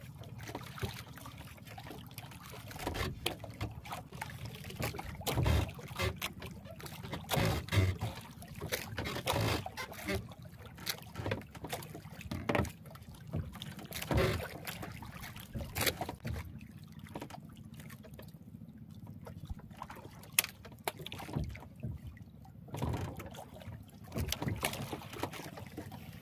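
Water slapping and splashing against the hull of a small outrigger boat, in irregular bursts over a steady low rumble.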